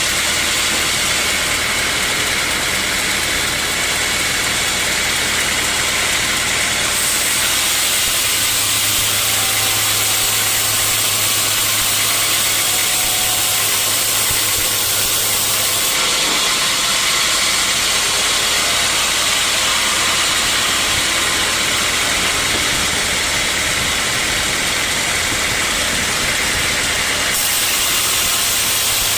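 Sawmill machinery running steadily: a motor's low hum under a broad hiss, the sound shifting abruptly three times.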